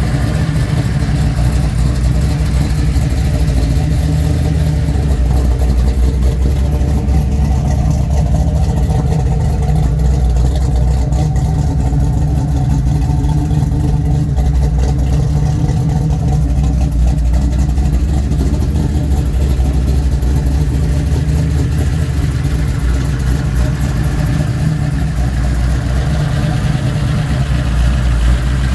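Chevrolet 400 small-block V8, fed by two Edelbrock 600 CFM carburetors and exhausting through long-tube headers into a straight exhaust, idling steadily.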